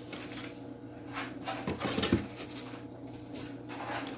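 Rustling and light knocking as the packing inside a fish-shipping box is handled, the loudest cluster about two seconds in.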